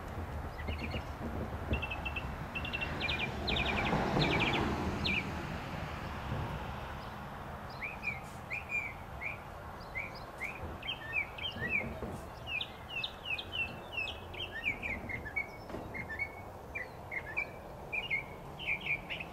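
Northern mockingbird singing: rapid runs of repeated notes for the first few seconds, then after a short pause a long string of varied chirps and slurred notes. A low rumble swells and fades around four seconds in.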